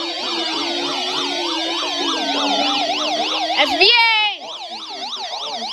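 Several electronic sirens sounding together in a fast up-and-down yelp, about two to three sweeps a second, over a steady low tone. About four seconds in, the steady tone breaks off with a short falling burst, and the yelping carries on more quietly.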